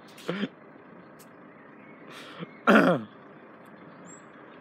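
Two brief non-word vocal sounds from a person, a short one just after the start and a louder one near the middle that falls in pitch, like a shout or a throat-clearing.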